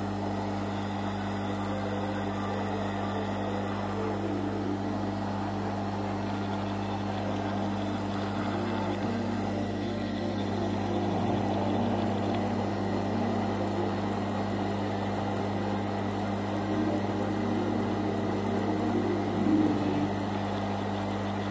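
Steady electric hum and fan whir of hot-air soldering equipment running while it heats a circuit board, with a brief louder swell near the end.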